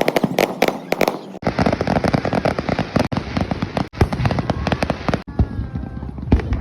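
Fireworks going off in a rapid string of bangs and crackles. The sound changes about a second and a half in to a denser, continuous crackle.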